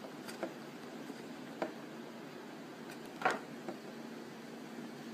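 Handling noise while fitting polymer clay into a plastic toy rifle part: a few faint clicks and one louder knock about three seconds in, over a steady low hum.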